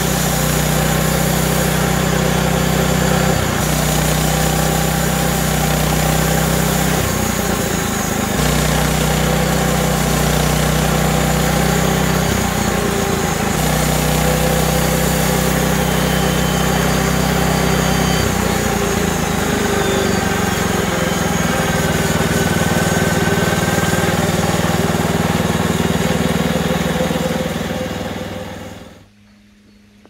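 Petrol engine of a home-built log bandsaw running steadily under load as the band blade saws through a log of wild service tree, one of Europe's hardest woods. The engine note dips briefly a few times, and the sound stops near the end.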